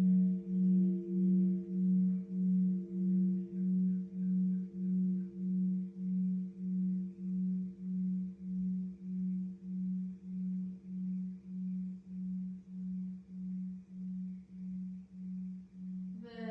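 A large bronze Buddhist temple bell (đại hồng chung) humming as it dies away after a strike. Its one low tone pulses about twice a second over fainter higher partials and fades slowly.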